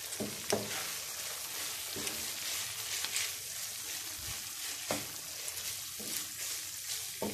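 Shredded chicken filling sizzling in a nonstick frying pan as a wooden spatula stirs it, with a steady hiss and a few short scrapes of the spatula against the pan.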